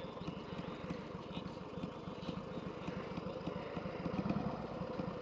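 Harley-Davidson Sportster's V-twin engine running at low revs with a steady, rapid, even pulse.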